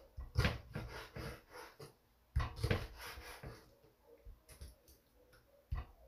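Chef's knife slicing squid on a wooden cutting board: irregular soft taps of the blade against the board, in little runs near the start and around two and a half seconds in.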